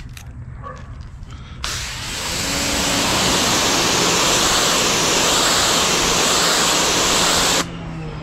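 Giraffe Tools Grandfalls electric pressure washer (up to 2200 PSI) blasting a concrete driveway through its orange 15° nozzle: a loud steady hiss of the water jet that starts suddenly about a second and a half in and cuts off sharply near the end, with a faint hum of the pump motor underneath. A few small clicks come first as the nozzle is fitted.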